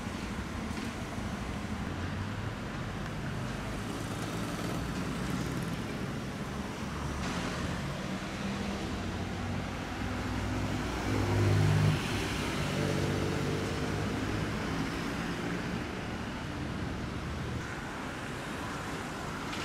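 Porsche 911 sports cars driving in city traffic, their flat-six engines over a steady wash of road noise. About midway an engine note climbs and grows loudest as the black 911 Turbo's twin-turbo flat-six pulls off, then settles into a lower run.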